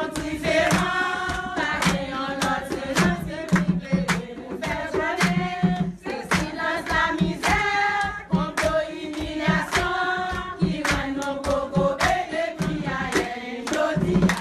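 A group of mostly women singing together in unison, with steady hand clapping in time, about two or three claps a second.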